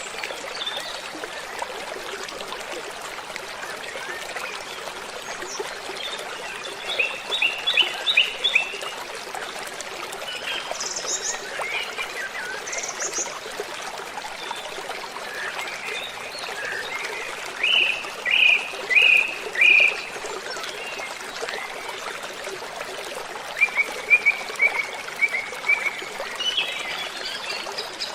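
Waterfall rushing steadily, with birds calling over it in short runs of quick repeated notes, the loudest a run of four strong notes a little past the middle.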